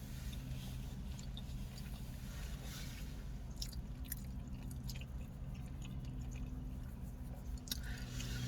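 Eating mouth sounds: soft chewing with scattered wet smacking clicks, over a steady low hum.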